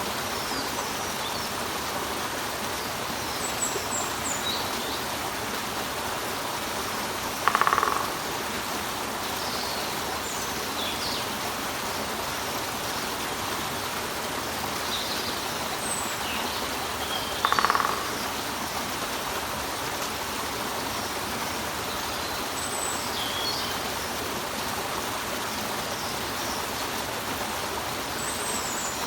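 Water splashing steadily over a rock, with small birds chirping high and thin here and there. Twice, about ten seconds apart, a louder half-second woodpecker call rises above the water.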